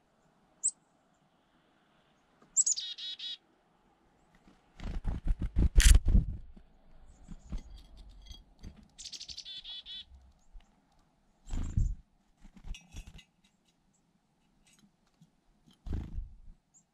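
Black-capped chickadees calling: a single high chip just under a second in, then two short runs of rapid high notes, about three and about nine and a half seconds in. Between them come bursts of rustling noise close to the microphone, the loudest about five to six seconds in, with shorter ones near twelve and sixteen seconds.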